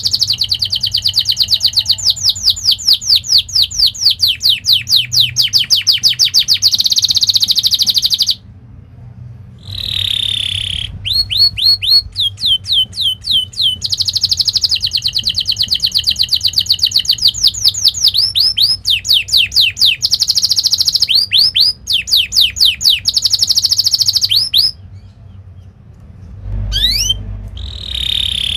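Domestic canary singing: long fast trills of repeated down-slurred whistled notes, with denser rolling passages, broken by two short pauses, one about eight seconds in and one near the end.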